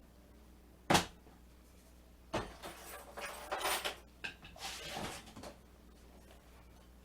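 A single sharp knock about a second in, then a few seconds of rustling with lighter knocks and clatter, as of things being moved and handled.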